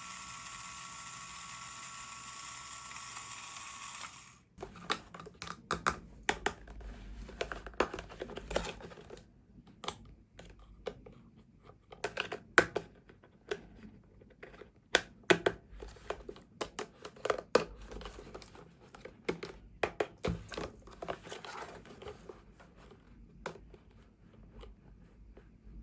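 Small plastic toy pieces being handled and set down, with irregular clicks and taps and light crinkling. Before that, a steady hiss cuts off about four seconds in.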